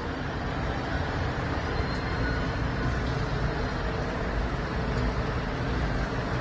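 Steady low rumble of a vehicle engine running, even and unchanging.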